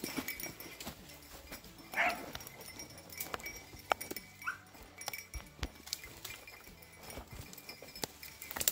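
Beagles baying while running a cottontail rabbit's track: two short bays, about two seconds in and again about four and a half seconds in, over scattered clicks and rustling of dry brush underfoot.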